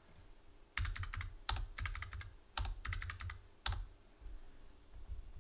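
Typing on a computer keyboard: four quick runs of keystrokes over about three seconds, then the typing stops.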